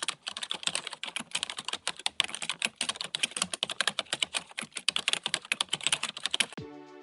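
Rapid typing on a keyboard, a dense run of quick key clicks that stops shortly before the end, when soft music with pitched notes begins.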